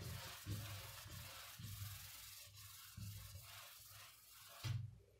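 A duster rubbed back and forth across a whiteboard, erasing marker writing in a series of irregular wiping strokes that stop shortly before the end.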